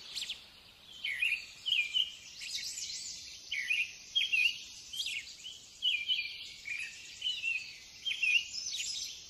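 Songbirds chirping and twittering without a break: quick high notes that rise and fall, several a second.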